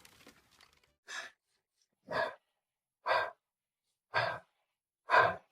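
A dog huffing: five short breathy puffs about a second apart, growing louder.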